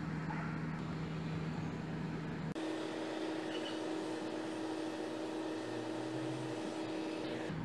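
Steady background hum with a constant pitch, changing suddenly to a higher steady hum about two and a half seconds in.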